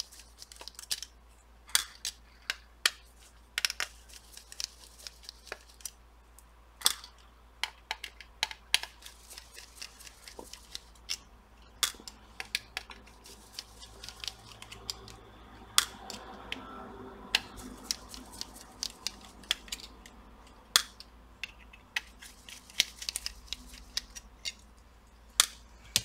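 Irregular sharp clicks and light taps of a small PH00 screwdriver working the tiny screws out of the fan covers on an Acer Nitro 5 laptop's cooler, with the screws and plastic parts handled between them. A faint low hum sits underneath.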